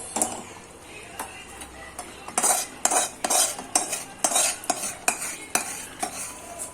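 Metal spoon scraping and knocking against a cooking pan while chicken is stirred into masala gravy. A knock comes at the start, and after a couple of seconds the strokes turn into an uneven back-and-forth scraping, about two a second.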